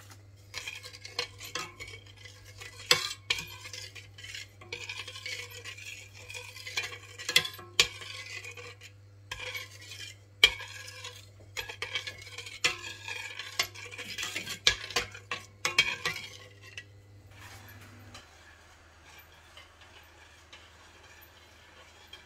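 Metal spoon stirring pickling brine in a stainless-steel pot, scraping and clinking against the pot's bottom and sides. The stirring stops near the end, leaving only a faint low hum.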